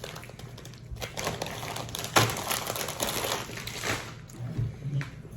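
Rustling and crinkling with scattered clicks and taps, the sharpest about two seconds in.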